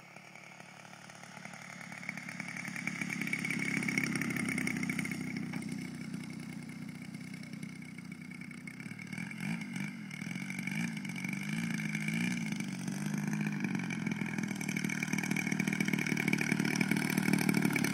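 Two-stroke gas engine of a large radio-controlled aerobatic plane running at low throttle while taxiing on the grass. It gets louder over the first few seconds, and its pitch wavers up and down near the middle.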